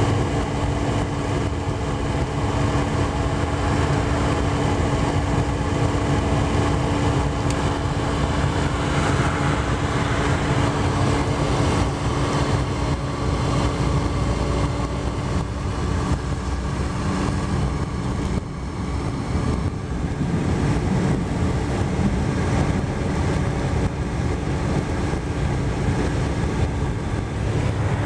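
Steady road and engine noise inside a moving car's cabin, with a constant low hum.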